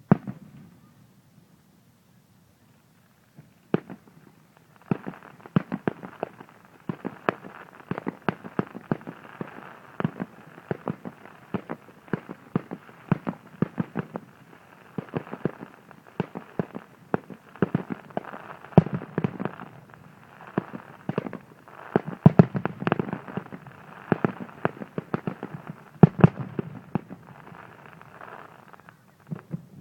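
Aerial fireworks bursting: a single bang at the start, then, after a few seconds' pause, a rapid, dense barrage of bangs over a continuous crackle that runs on to the end, heaviest a little past the middle.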